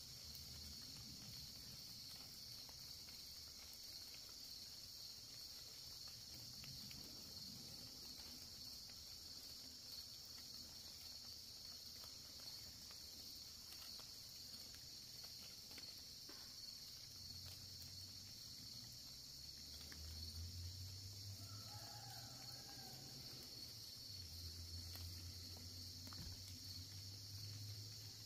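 Steady, high-pitched chorus of insects in the woods, faint and unbroken. A faint low hum joins in during the second half.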